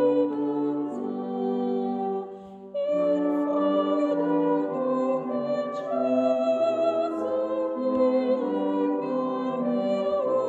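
Slow music of long held chords that change every second or so, pausing briefly about two and a half seconds in.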